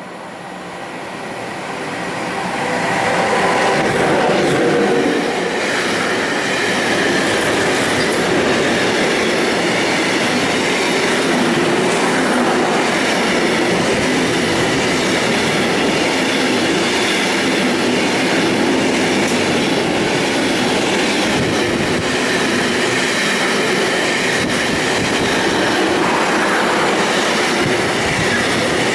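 A Siemens Vectron electric locomotive hauling an intermodal freight train of truck trailers passes close by. The noise builds over the first few seconds as the locomotive draws near, then the wagons roll by in a loud, steady rush, with a stream of wheel clicks.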